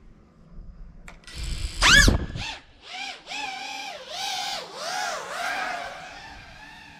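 GEPRC FPV quadcopter's brushless motors spinning up and punching it off the ground, a sharp rising whine about two seconds in that is the loudest moment. After that the motor whine swings up and down in pitch with the throttle, then settles steadier and fainter near the end as the drone climbs away.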